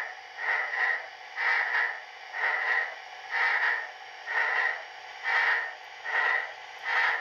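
Steam exhaust chuffs from the ESU LokSound decoder of an HO-scale Rivarossi Blue Ridge 2-6-6-6 locomotive, played through its onboard speaker as the engine moves at low speed. The chuffs are hissy and come about once a second, quickening slightly as the throttle is stepped up.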